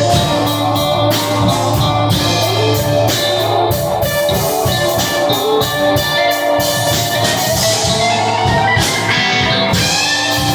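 Musicians jamming: guitar playing over a drum kit keeping a steady beat, continuous and loud.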